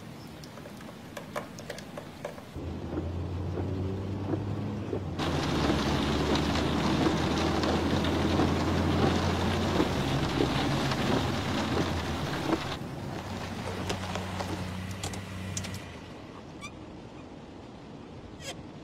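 Rain falling, with scattered sharp drop ticks, growing into a heavy, loud downpour hiss from about five seconds in until about thirteen seconds. A low steady hum runs underneath through most of it.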